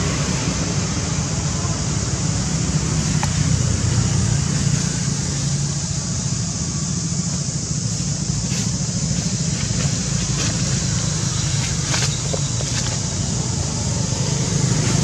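A motor vehicle engine running steadily: a constant low rumble under a steady hiss, with a few faint clicks.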